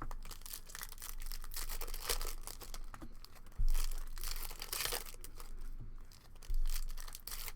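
Foil trading-card pack wrappers being torn open and crinkled, with rustling and handling of the packs, and two dull thumps, about three and a half and six and a half seconds in.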